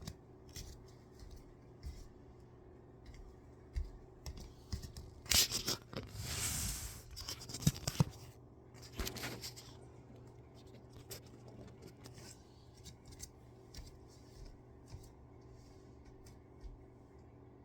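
Rustling and scraping of a person moving through exercise, with scattered light clicks, a louder stretch of rustling about five to seven seconds in, and a couple of sharp knocks about eight seconds in.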